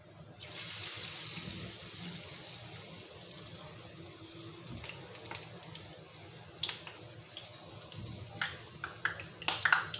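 Cassava dough patty frying in hot cooking oil: a loud sizzle starts about half a second in and slowly eases, with sharp pops of spattering oil more frequent near the end.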